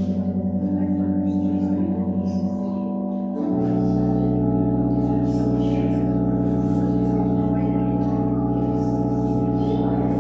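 Church organ holding sustained chords, moving to a fuller, lower chord about three and a half seconds in, with a slight rapid waver in loudness.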